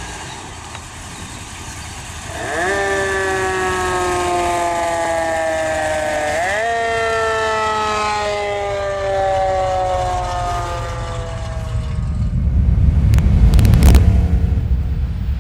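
A fire truck siren sounds twice, each time jumping up in pitch and then slowly sinking, over the low running of the truck's 502 cubic-inch big-block V8. Near the end a louder low rumble swells, with a few sharp clicks.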